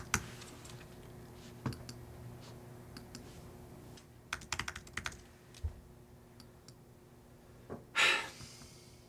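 Typing on a computer keyboard: scattered keystrokes in short bursts with pauses between them, over a faint steady hum. A brief breathy rush of noise about eight seconds in is the loudest sound.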